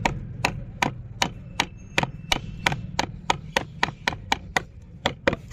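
Wood chisel chopping into a softwood board, a steady run of sharp knocks about three a second as it carves out a curved arch.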